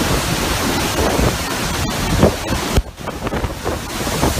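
Hurricane-force wind with driving rain blasting the phone's microphone: a loud, gusting rush that dips briefly about three seconds in.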